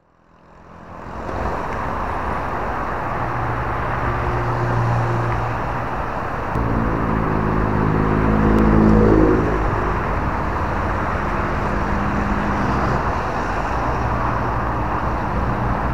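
Steady road-traffic noise that fades in at the start. A motor vehicle's engine grows louder and rises in pitch, loudest about nine seconds in.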